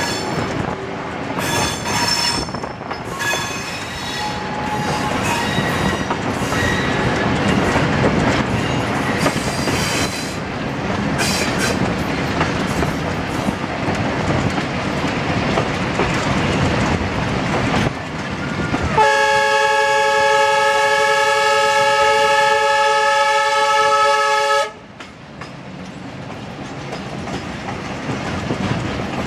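Passenger train rolling behind a CFR Class 69 locomotive, with steady rail running noise and high wheel squeal coming and going in the first ten seconds or so. About two-thirds of the way in, the locomotive's horn sounds one long chord of several tones for about six seconds and cuts off suddenly.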